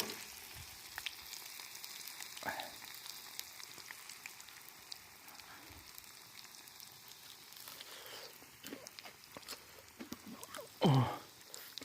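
Food deep-frying in hot oil, a steady sizzle with scattered pops. Near the end there is one louder short sound that slides down in pitch.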